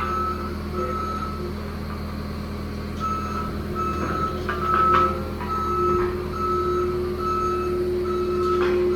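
Backup alarm of a reversing machine beeping in a steady pattern, a little faster than once a second, over a constant low machine hum, with a few sharp knocks.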